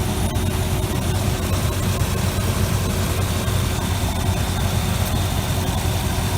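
A 454 cubic-inch big-block V8 in a 1988 Chevy R35 truck idling steadily.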